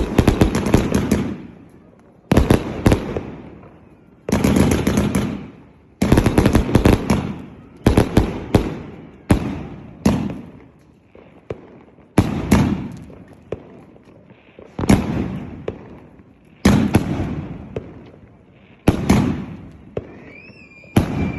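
Consumer firework cake with 158 shots in 1.2-inch and 2-inch tubes, firing volley after volley. A new burst comes about every two seconds. Each one opens with a quick cluster of bangs and fades away before the next.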